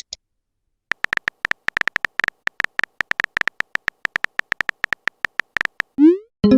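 Chat-app sound effects: a run of short, irregular electronic beeps at one pitch for about five seconds, like keys being typed, then a quick rising swoosh and a ringing chime right at the end.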